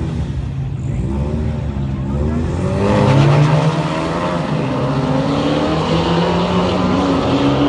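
Two drag-racing cars revving on the start line and then launching hard about three seconds in: a Dodge Charger R/T's Hemi V8 breathing through long-tube headers, and a nitrous-fed turbocharged four-cylinder Ford Mustang EcoBoost. The engine pitch climbs under full throttle, dips briefly near the end as a gear changes, then climbs again.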